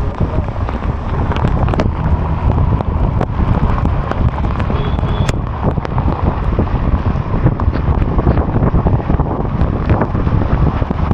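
Strong wind buffeting the action camera's microphone: a loud, gusting low rumble, with scattered small clicks and knocks.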